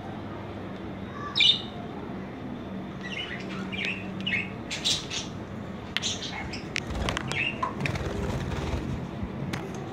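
Pet budgerigars chirping in short, scattered calls, with a flurry of wing flapping and scrabbling on the cage about two-thirds of the way in.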